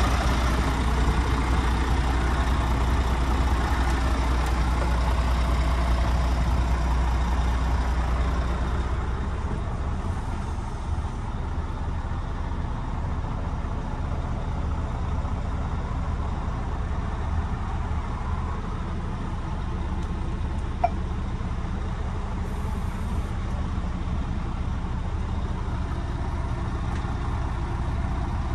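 Scania P370 truck's nine-litre five-cylinder diesel engine idling steadily with a low hum. It is louder at first, then more muffled from about nine seconds in, as heard from inside the cab.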